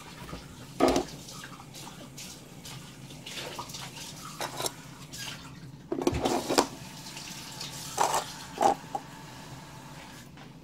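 Kitchen tap running water into a container, with several sharp clinks and knocks of dishes and utensils, the loudest about a second in and around six seconds in.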